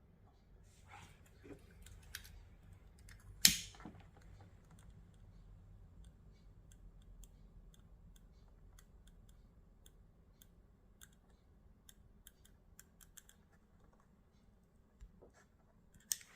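Small parts and tools being handled on a workbench: a sharp click about three and a half seconds in, a smaller one near the end, and scattered faint ticks between.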